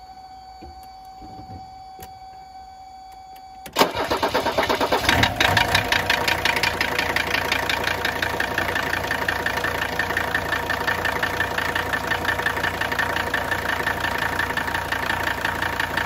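Mercedes-Benz OM617 five-cylinder diesel cranking and firing about four seconds in, after a faint steady tone, then idling on diesel purge with a rapid, steady diesel clatter. This is the knock under test: normal injector nailing if the purge quiets it, something worse if not.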